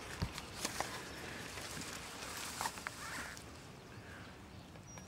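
Handling noise of a handheld camera being turned around and pointed into tall grass: a few light clicks and rustles over faint outdoor background noise.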